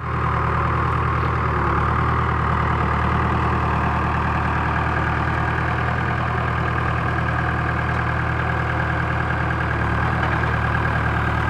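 Diesel engine of a Case 660 trencher backhoe running steadily, with no change in speed.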